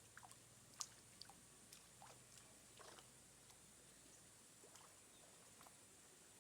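Near silence: faint, scattered short clicks and brief chirps over a steady thin high hiss.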